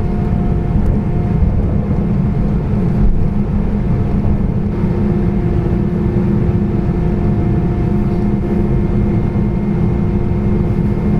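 Airbus A320 airliner taxiing, heard inside the cabin: a steady low rumble with an even engine hum.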